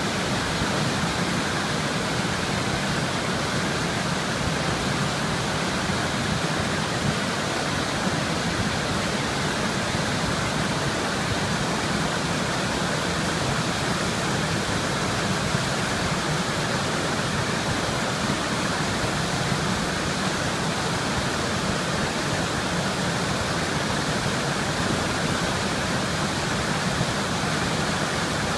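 Hino River water flowing, a steady even rush of water.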